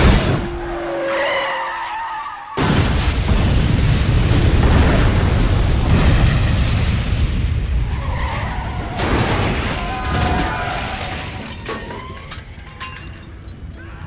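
Movie car-crash sound effects: a sharp impact, tyres squealing, then a sudden loud crash about two and a half seconds in that goes on for several seconds with shattering and scraping, more squeals, and a fade near the end.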